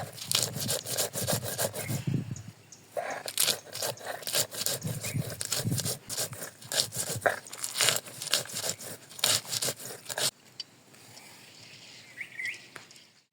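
Fast, irregular scraping and clicking of cooking work, a utensil working against cookware or a board, which stops about ten seconds in. A short chirp comes near the end.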